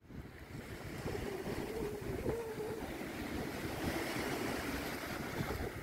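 Small sea waves washing up a sandy beach and breaking around rocks, a steady rush of surf that fades in over the first second, with a low rumble of wind on the microphone.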